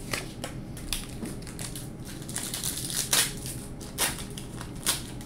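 A wrapped pack of 1998 Score football cards being handled and torn open, its wrapper crinkling and crackling in a run of sharp rustles, loudest a little after three seconds in, with further sharp crackles near four and five seconds.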